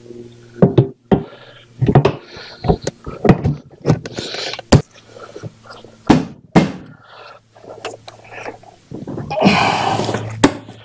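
Hard saddlebag of a Harley-Davidson Dyna Switchback being fitted onto its quick-release mount and latched: a string of sharp knocks, clicks and clunks, with about a second of scraping near the end.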